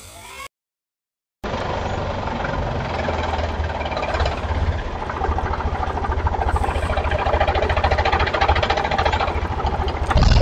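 A miniature DIY concrete-mixer machine starts running steadily about a second and a half in, with a fast, even rattling knock like a small idling engine.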